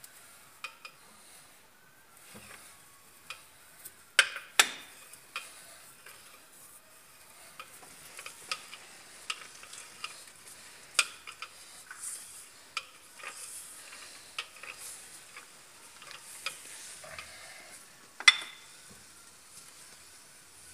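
Irregular metallic clicks and knocks from a screw-type cylinder-liner puller being tightened on an Isuzu engine block to press out a cylinder liner. There are a few louder knocks, about four seconds in and near the end.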